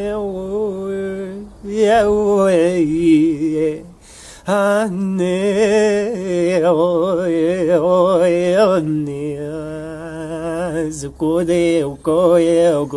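A solo voice singing a wavering, chant-like melody in invented gibberish syllables, with short breaks about four and about eleven seconds in.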